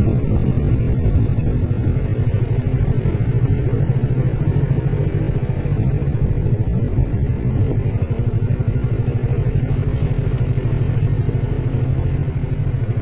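Motorcycle engine running steadily while riding along at an even speed, a low drone that keeps the same pitch throughout.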